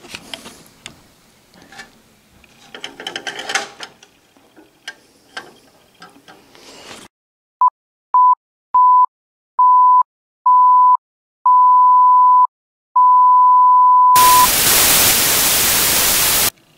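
Light clicks and knocks of the antique penny scale being handled. Then a 'technical difficulties' insert: a steady test-tone beep sounds seven times, each beep longer than the last, the final one long, followed by a burst of loud static hiss that cuts off suddenly.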